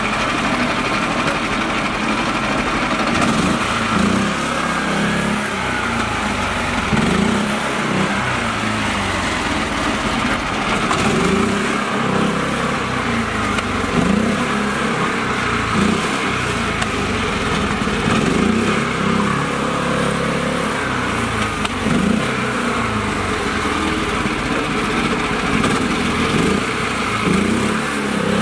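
Mini tractor's small engine running under load as it churns through deep mud and water, its note rising and falling repeatedly every couple of seconds.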